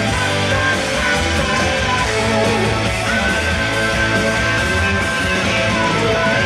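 Live rock band playing at full volume: drums, guitar and keyboards together, with a long high note held from about halfway through.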